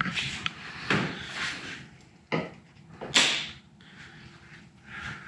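A few brief knocks and scrapes of handling, the loudest a sharp scrape about three seconds in.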